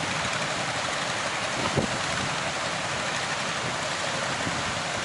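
Steady rush of surf breaking and churning, with one brief low thump about two seconds in.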